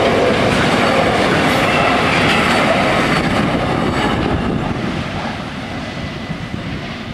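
Freight train wagons rolling past, wheels clattering over the rails. The sound fades over the last few seconds as the final wagon goes by.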